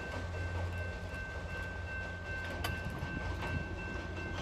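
EMD FL9 diesel locomotive running with a steady low engine drone as the train moves away on the track, with a few faint wheel clicks.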